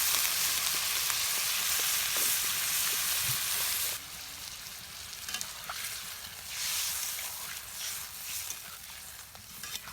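Water poured into a hot pan of potatoes fried in spice paste, sizzling loudly, then dropping suddenly about four seconds in to a quieter sizzle with scattered clicks of stirring.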